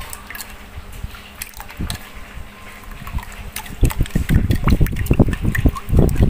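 Metal spoon stirring a fish-sauce dip in a mortar: liquid sloshing, with sharp clicks of the spoon against the bowl. The stirring gets louder and faster about four seconds in.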